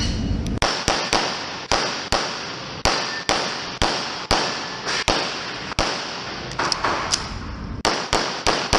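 A string of pistol shots fired in rapid succession during a USPSA stage, about twenty sharp cracks starting about half a second in, coming in quick pairs and runs with short pauses between target arrays.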